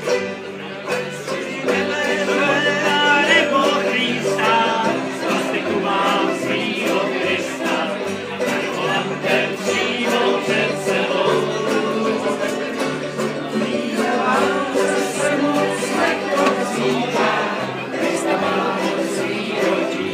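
Live acoustic band music: banjo and acoustic guitars with a bass line stepping from note to note, and several voices singing along together.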